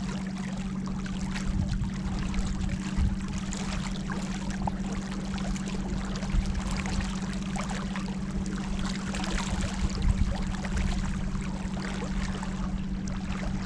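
Small boat's motor running at a steady pitch, with river water rushing and splashing along the hull.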